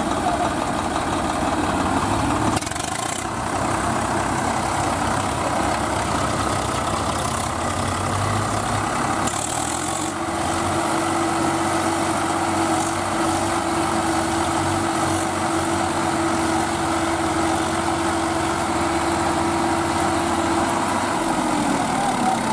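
Diesel tractor engines running under load as the tractors pull through deep mud. A steady engine note holds from about halfway and drops in pitch shortly before the end.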